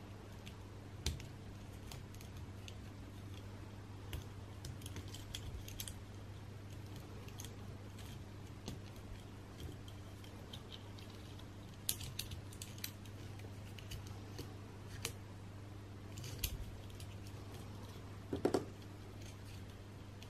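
Small plastic Playmobil figure parts clicking and tapping as they are handled and worked together while a belt is fitted onto the figure's torso: faint, irregular clicks with a duller knock near the end, over a steady low hum.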